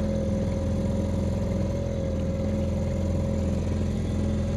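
Small boat's outboard motor running at a steady speed, an even drone with no change in pitch.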